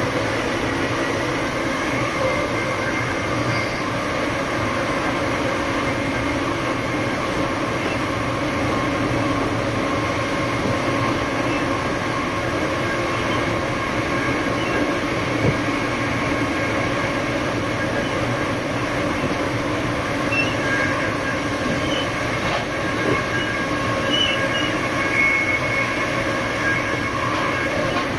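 Siemens Charger diesel-electric locomotive under way, its Cummins QSK95 diesel engine and traction motors running steadily with several held tones over rail noise. A few faint high squeaks come in the last third.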